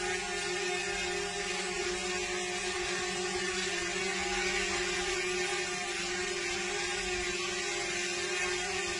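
Quadcopter drone's motors and propellers whirring steadily while it hovers, a constant multi-tone hum without change in pitch.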